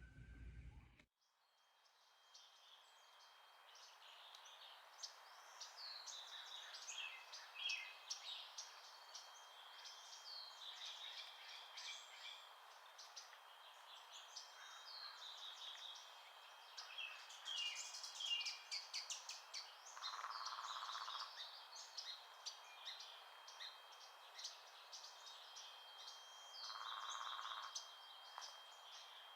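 A chorus of small birds singing and chirping, many short high chirps and trills overlapping throughout, with two short buzzy calls in the second half.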